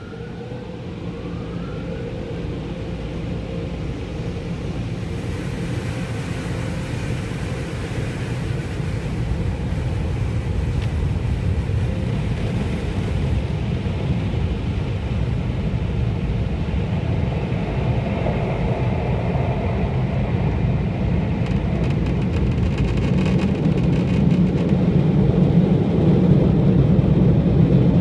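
Steady low rumble of the touchless car wash's machinery and the car, heard from inside the cabin, growing steadily louder as the car moves through the wash's last stage and out.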